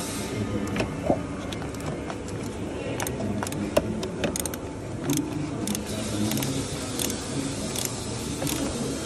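A ratchet wrench clicking and metal tools clinking on the exhaust fasteners of a catalytic converter: scattered sharp metallic clicks, bunched more closely about three to five seconds in.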